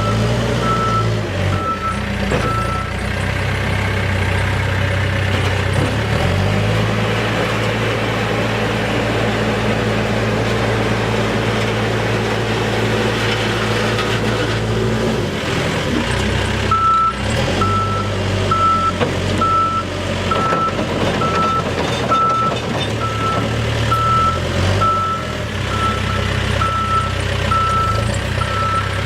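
A Case 580N backhoe loader's diesel engine running, its engine note shifting a few times. A reversing alarm beeps steadily, a little faster than once a second, for the first few seconds and again through the second half.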